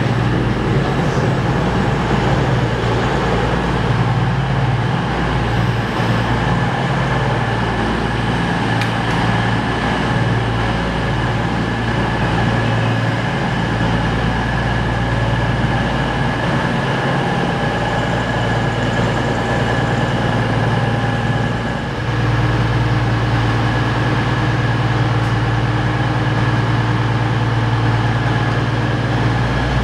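Class 222 Meridian diesel multiple unit running at the platform: a loud, steady low engine hum from its underfloor diesel engines, with a thin high whine above it. About two-thirds of the way through there is a brief dip and the hum changes to a new steady drone with an added tone, as the view cuts to another unit seen from above.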